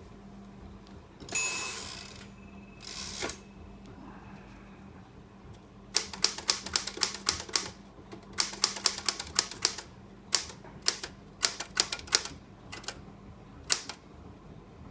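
Royal Magic Margin manual typewriter. About a second and a half in there is a loud clatter with a short ringing tone, and another clatter follows near three seconds. From about six seconds on come bursts of rapid, sharp key strikes with short pauses between them.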